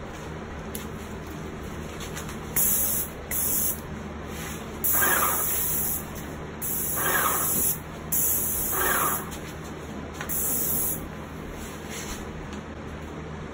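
Paint spray gun spraying white paint onto a wooden shutter louver in about six short bursts of hiss, each a second or less, over a steady background hum.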